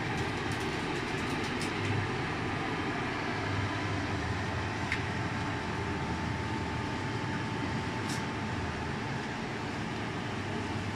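Steady mechanical hum and fan noise of cinema projection booth equipment, with a faint steady whine through the middle and a few light clicks.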